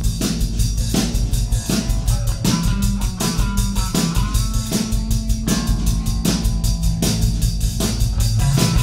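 Live rock band playing: a drum kit driving a busy beat with several hits a second, under an electric bass and keyboards.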